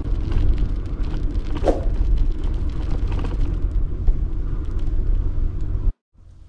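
Steady low rumble of wind on the microphone and tyre noise from a bicycle being ridden, which stops abruptly about six seconds in.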